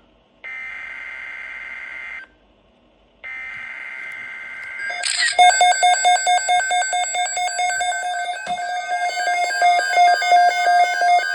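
Emergency Alert System broadcast alert: two screeching digital data bursts (SAME header), each about two seconds long with a one-second pause between them. From about five seconds in, a loud alert tone follows: a steady tone with higher tones switching rapidly over it.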